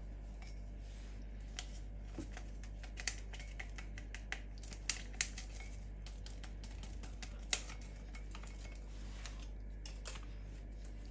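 Light, scattered clicks and taps as agar-agar powder is emptied from its packet into a cut-glass mug and the glass is handled, over a faint low hum.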